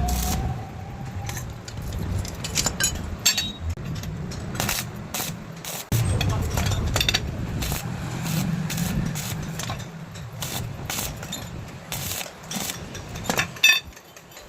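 Irregular clinks and knocks of metal pieces being handled in a welding workshop, over a low background rumble.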